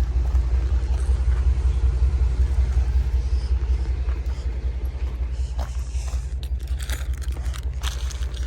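A car engine idling steadily with a low rumble, and a few light clicks and knocks in the last few seconds.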